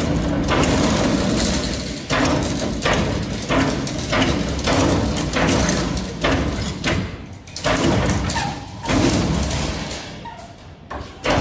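Wire straightening and cutting machine running: the rotary straightening drum spins with a loud, steady mechanical rattle, broken by irregular knocks about one or two a second.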